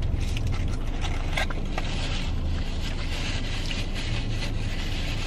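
Steady low hum of a parked car running, heard inside its cabin, with a few small clicks of someone eating.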